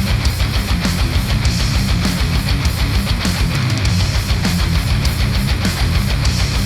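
Heavy metal music with guitars and rapid drumming, played through headphones and picked up by measurement microphones.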